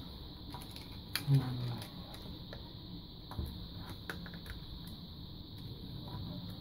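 Light clicks and taps of plastic headphone ear-cup parts being handled and fitted together, scattered irregularly, over a steady high-pitched hiss.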